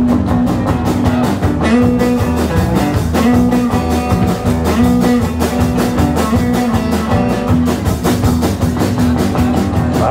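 Live rock-and-roll band playing an instrumental passage without singing: acoustic and electric guitars, electric bass and drum kit over a steady beat.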